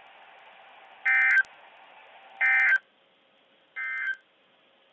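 NOAA Weather Radio SAME digital data bursts: three short bursts of data tones about a second and a quarter apart, the last one quieter. This is the end-of-message code that closes a weather radio broadcast.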